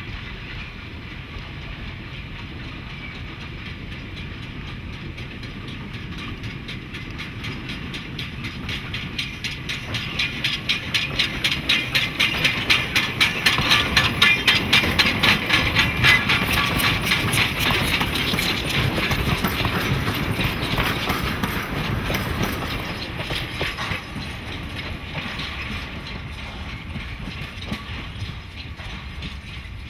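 Steam tank locomotive Pozieres and its wooden carriages passing by. A fast, even rhythmic beat grows louder as the engine comes close, peaks about halfway through, and fades as the train moves away.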